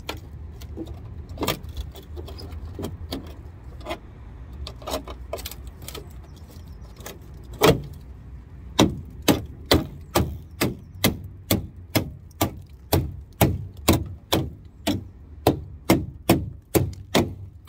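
Claw hammer knocking at the rusted steel sill of a Talbot Express campervan, breaking into rotten metal. Scattered, lighter blows at first, then from about eight seconds in a steady run of loud strikes about two a second.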